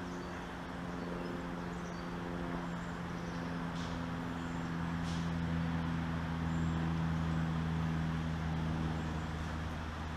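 A vehicle engine's steady hum that grows louder toward the middle and eases off a little near the end, with a few faint short scratchy sounds over it.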